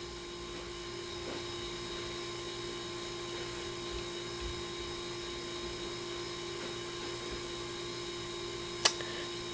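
A steady hum with one constant mid-pitched tone, and a single sharp click near the end.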